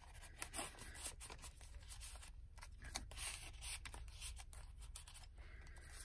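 Paper rustling and sliding as a tag is slid from a pocket and a page of a handmade paper journal is turned, a run of soft scrapes and light taps.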